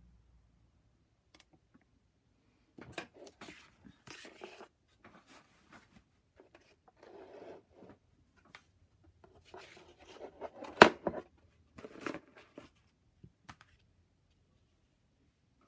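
Hands handling a painting on paper and a plastic paint palette on a table: scattered bouts of rustling and scraping, with one sharp knock about eleven seconds in, the loudest sound.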